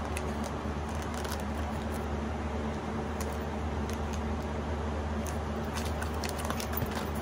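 Steady background hiss and low hum, with faint scattered crinkles and ticks from plastic-wrapped makeup brushes being handled.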